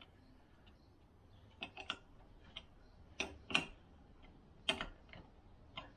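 Faint, irregular metallic clicks of a socket wrench being worked on a bolt, single or in quick pairs, with short pauses between.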